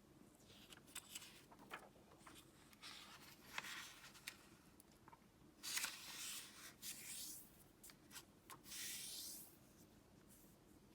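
Origami paper being folded and creased by hand: faint rustles and a few longer brushing strokes as the folds are pressed flat, with small crackles and clicks in between.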